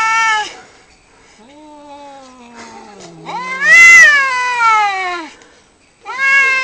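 Cats yowling at each other in a fight standoff: long drawn-out wails that rise and fall in pitch, the loudest about four seconds in, with a lower moaning yowl beneath them and another wail starting near the end.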